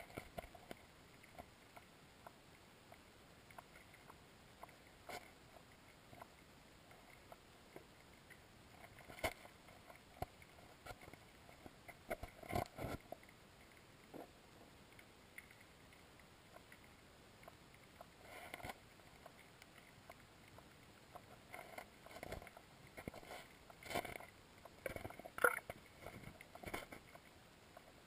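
Faint, irregular clicks and knocks, heard underwater through a waterproof camera housing, over a quiet hiss. They come in scattered clusters, thickest in the second half.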